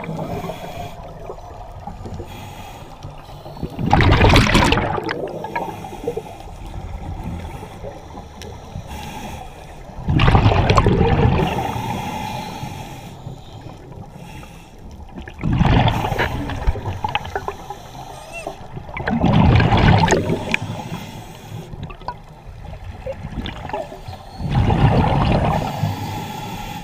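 Scuba diver breathing through a regulator underwater: five loud rushes of exhaled bubbles, each a second or two long, about every five seconds, with quieter noise between.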